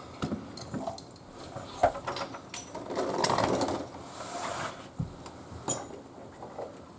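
Tools and plumbing parts being handled: scattered clicks and knocks, with a sharper knock a little under two seconds in and a stretch of scraping around three to four seconds.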